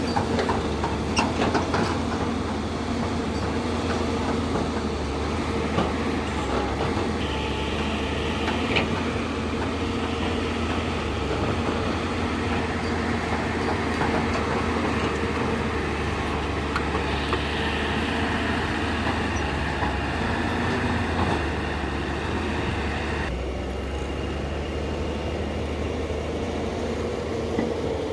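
Hyundai Robex 210-7 excavator's diesel engine running steadily as the machine works, with scattered knocks and clanks. A higher whine joins about seven seconds in and drops away about five seconds before the end.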